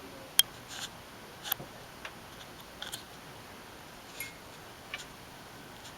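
A few scattered, separate clicks and light taps, the first one the sharpest, over faint room tone.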